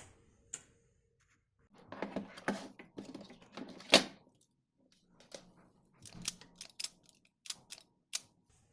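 Small cable connectors and wires being handled: light rustling with sharp clicks, the loudest about four seconds in, then a quick run of separate clicks near the end.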